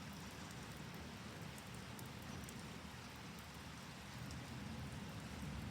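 Heavy rain falling steadily, with a steady low rumble underneath and faint scattered drop ticks.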